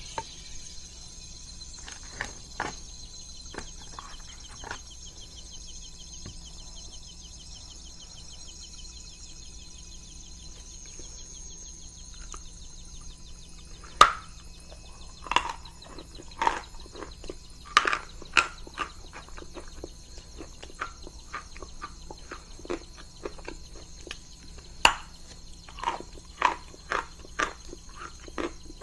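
Dry chalk being bitten and chewed close to the microphone. A few soft crunches come early, then a loud sharp snap of a bite about halfway through, followed by a run of crunchy chewing strokes and a second run near the end.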